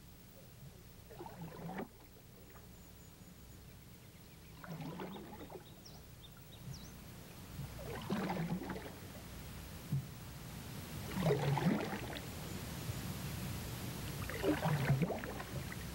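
Canoe paddle strokes in the water at a slow, even pace, one about every three seconds, each a short splash.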